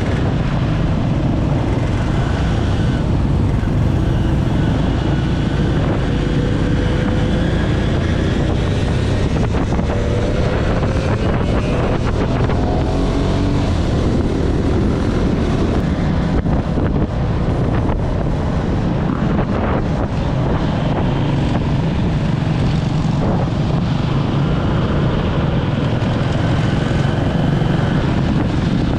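Motorcycle engines running, a steady rumble with wind buffeting the microphone. Faint rising engine tones come twice near the middle.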